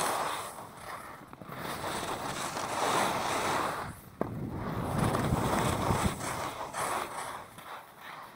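Skis scraping and hissing over packed snow with wind rushing over the microphone, the rush swelling and fading with each turn. A sharp click about four seconds in; the rush dies down near the end.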